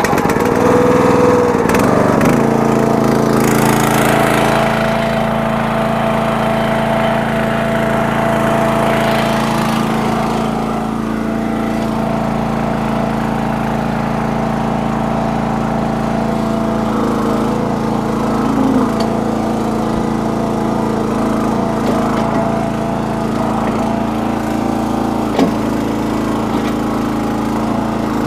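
Small engine of a towable backhoe running steadily at a constant speed while the machine is worked, with a brief knock about 25 seconds in.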